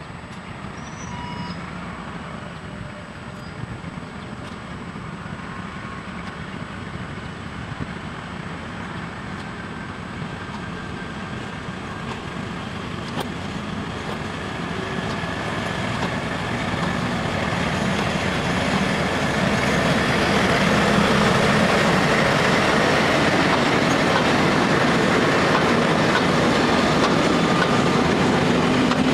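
Two SNCF BB 66000 diesel locomotives hauling a freight train approach and pass, their engine sound growing steadily louder. The freight wagons then roll past with a steady rumbling rail noise.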